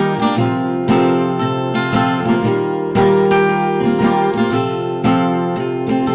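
Background music: acoustic guitar strumming and plucking in a steady rhythm.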